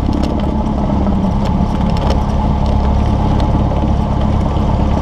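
Cessna 172's piston engine and propeller running steadily at low taxi power.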